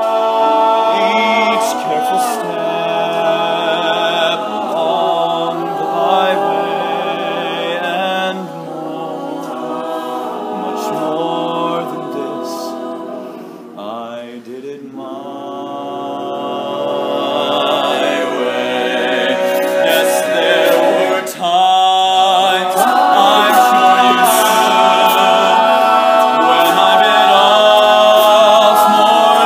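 All-male a cappella group singing a slow ballad: a solo lead voice over close-harmony backing voices. The singing drops quieter about halfway through, then swells to full volume near the end.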